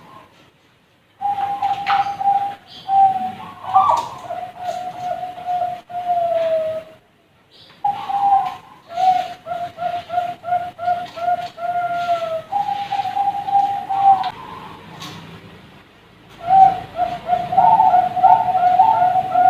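Young Bangkok-strain zebra doves (perkutut) cooing: bouts of clear whistled coos, some drawn out and some in quick runs of short repeated notes, with brief pauses between bouts.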